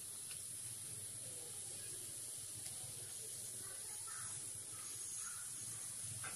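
Steady background hiss with a low hum underneath and no distinct event, only a few very faint soft sounds.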